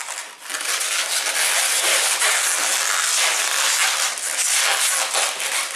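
Latex modelling balloons rubbing under the fingers as they are twisted and fastened: a continuous, loud, dense scratchy rubbing.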